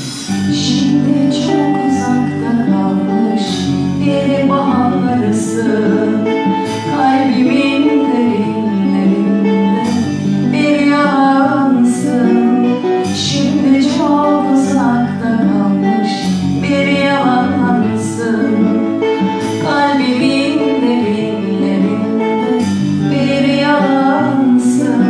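Music: a woman singing a melody over plucked guitar accompaniment.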